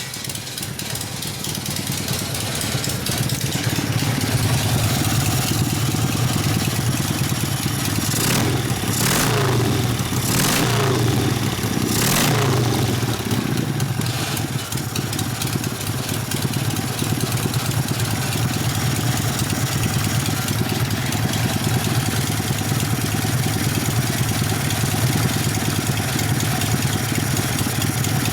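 Freshly rebuilt 1972 Harley-Davidson Ironhead Sportster V-twin engine running, with a cluster of quick throttle blips about a third of the way in before it settles back to a steady idle.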